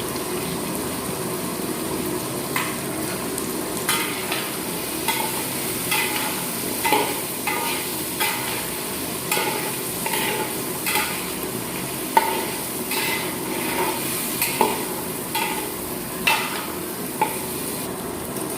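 Vegetables frying in oil in a pan with a steady sizzle, stirred with a metal spatula that scrapes against the pan. The irregular scraping strokes, about one or two a second, start a couple of seconds in.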